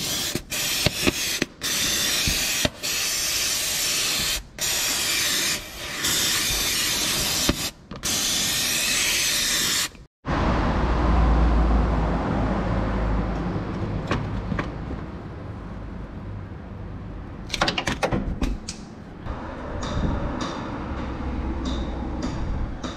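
Aerosol spray can hissing in a series of long bursts with short breaks, spraying onto the oily front crankshaft seal area of the engine. After about ten seconds it cuts to a low steady rumble with a few light clicks.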